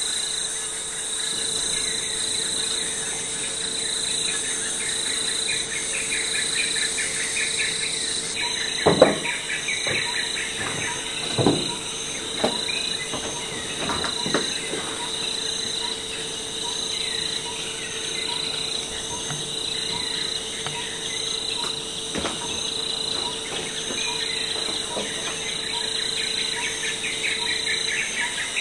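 A steady chorus of crickets and other insects, with several high chirps pulsing over and over. A few sharp knocks come about a third of the way in.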